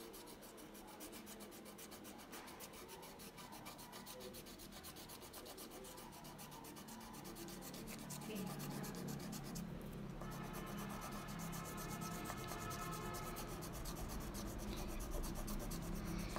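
Colored pencil rubbing rapidly back and forth on paper as an area is shaded in, a steady fast scratching of many short strokes.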